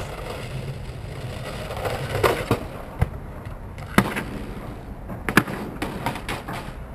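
Skateboard on concrete: wheels rolling with a steady rumble, broken by a string of sharp clacks and knocks as the board hits the ledge and the ground. The loudest knocks come about four seconds in and again a little after five seconds.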